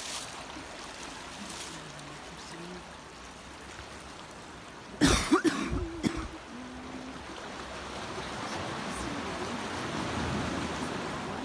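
A person coughs, clearing their throat, once about five seconds in, the loudest sound. Around it a faint steady hiss that grows louder near the end.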